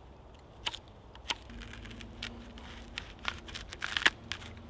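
Knife chopping vegetables on a wooden log-round board: a few separate sharp chops through carrot into the wood. About four seconds in comes a quicker, crunchier run of cuts as the blade slices through a leek, the loudest of them.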